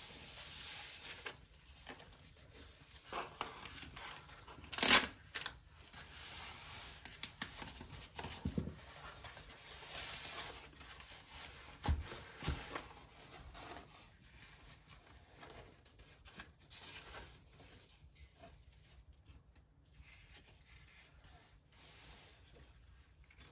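Foam packing wrap and tissue paper rustling and rubbing as hands unfold them from around a hardback book, with one loud, crisp crinkle about five seconds in and two short knocks around twelve seconds; the handling grows quieter and sparser in the second half.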